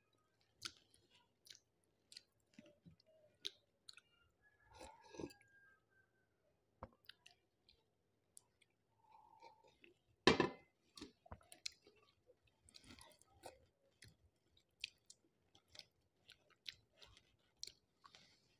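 A person chewing a mouthful of rice and curry, with faint scattered wet mouth clicks and smacks. There is one louder knock or clatter about ten seconds in.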